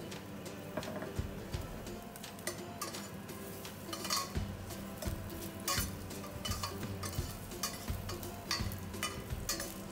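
Metal spoon scraping and clinking against a stainless steel sauté pan as dried Chinese herbs are stirred over medium-high heat, starting about two seconds in. Background music plays throughout.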